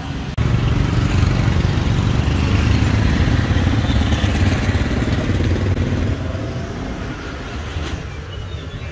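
Street traffic noise, with a motorbike engine running close by; it comes in suddenly about half a second in and eases off a little after about six seconds.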